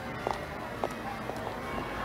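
Quiet background music, with a few faint short ticks spaced about half a second apart.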